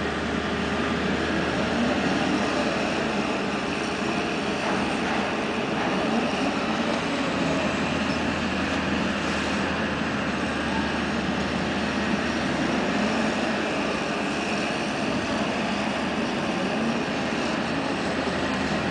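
Amphibious pontoon excavator's diesel engine running steadily while the boom works in the water: a constant low hum under an even, broad rumble.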